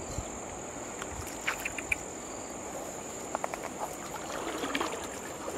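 Steady high-pitched drone of insects, like crickets, over quiet riverside ambience, with a few faint ticks around the middle.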